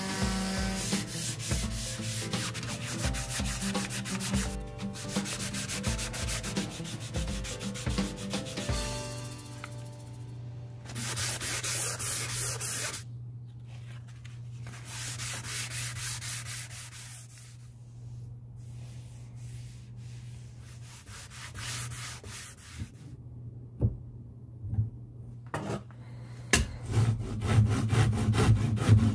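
Corded electric detail sander running against a wooden hammer handle for the first nine seconds or so. Then sandpaper rubs by hand along the handle in quieter strokes, and near the end come the louder, uneven strokes of a wood rasp shaping the wood.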